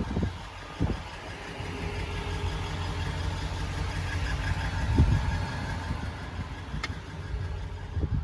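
5.7-litre Hemi V8 of a Dodge Ram 2500 pickup idling steadily, with a few short low thumps, the loudest about five seconds in.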